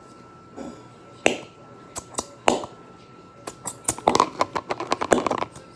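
Plastic glitter glue bottle being squeezed, giving irregular sharp clicks and crackles as glue and air are forced out, a few at first and then a dense run about four to five seconds in.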